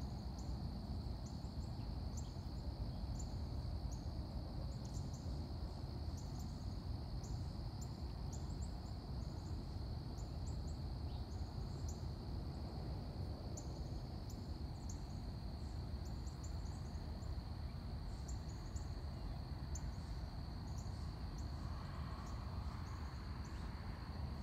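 Outdoor summer ambience of insects: a steady high drone with many short scattered chirps above it, over a low, even background rumble.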